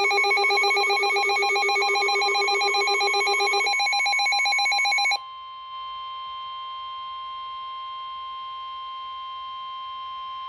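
Electronic emergency-alert attention signal: a loud, rapidly pulsing, ringing tone for about five seconds, then a single steady high-pitched tone held through the rest. It is the alarm that opens an Emergency Alert System severe thunderstorm warning before the spoken message.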